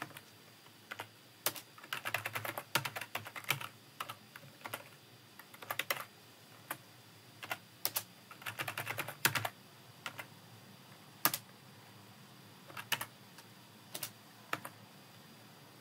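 Typing on a computer keyboard: short runs of keystroke clicks with pauses between them, thinning to single keystrokes near the end.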